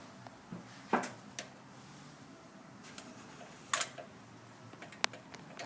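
Scattered light clicks and taps of hand tools and metal parts being handled. The sharpest come about a second in, near four seconds and near five seconds.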